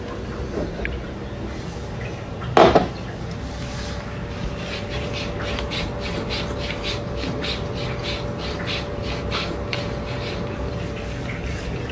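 A cat lapping water from a drinking glass, quick crisp laps at about four a second starting about four seconds in. A single short loud knock comes near three seconds in.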